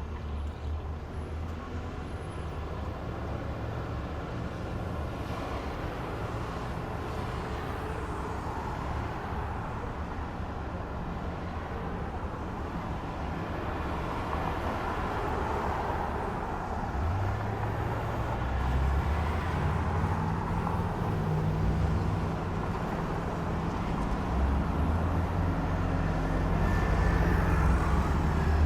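Road traffic at a street intersection: a steady wash of vehicle engines and tyres, with a deep engine hum that grows louder through the second half.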